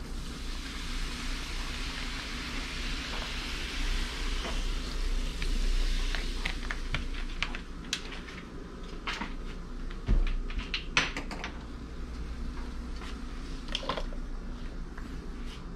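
Sprite poured from a plastic bottle into a steel pot of crabs, a steady hiss for about the first seven seconds. Then scattered clicks and knocks of kitchen handling, a thump about ten seconds in, and a glass lid clinking onto the pot near the end.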